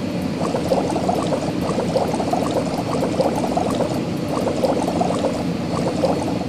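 Cartoon bubbling-water sound effect: a dense, continuous run of small bubbly pops that cuts off suddenly.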